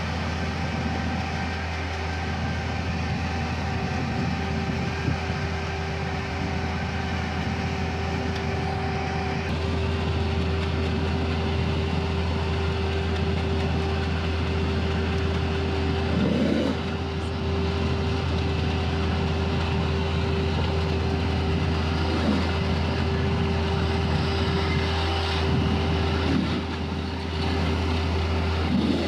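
Engine of a small floating pontoon dredge running at a steady speed: a constant low drone with a steady hum over it.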